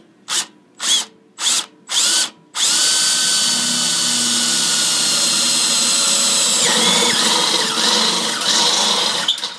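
Cordless drill with a step bit drilling into the steel wall of a beer keg: four short trigger bursts, then a steady run from about two and a half seconds in. Near the end its whine drops and wavers as the bit bites, and it stops just before the end.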